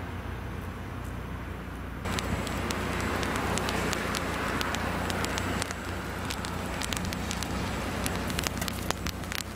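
Ice-storm precipitation, freezing rain and sleet, falling on ice-coated surfaces as a steady hiss with many sharp ticks. It gets louder about two seconds in, over a steady low hum.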